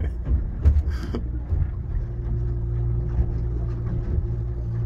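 Outboard motor running steadily, heard from inside the boat's cabin as a low hum, with a few short knocks in the first second.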